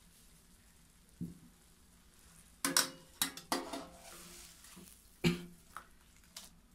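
Stainless-steel tongs clicking and scraping against a karahi while a steamed whole chicken is gripped and lifted out, with a burst of clatter past the middle and one sharp clack later.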